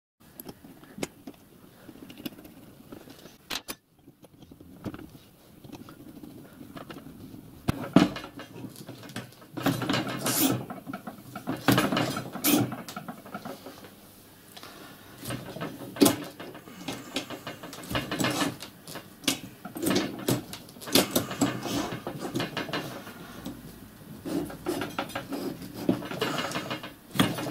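Small steel brake parts being handled and fitted by hand: irregular metal clicks, taps and scrapes as a clevis is fitted to the brake equalising bar. They come sparsely at first and more often from about eight seconds in.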